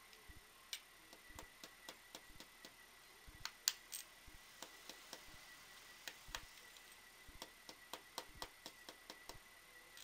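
Faint, irregular small clicks and taps, about one or two a second with the loudest a little before the middle, from a small screwdriver tip working against a small plastic laptop part held in the fingers.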